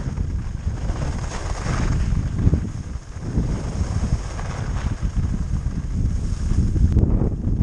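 Wind buffeting a GoPro's microphone while skiing downhill, a steady low rumbling noise, with the hiss of skis carving on packed snow swelling twice with the turns.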